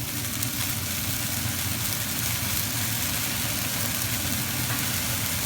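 Lamb shish kebabs sizzling and flaring on a gas-fired grill turned up full, over a steady low roar from the gas burners.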